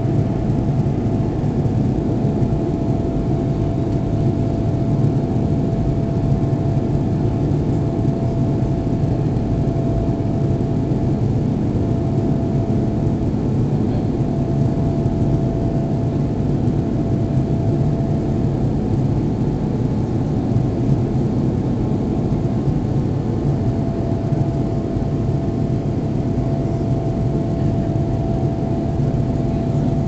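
Steady drone of an airliner's engines and airflow heard inside the passenger cabin after takeoff, with a faint steady whine above the low rumble.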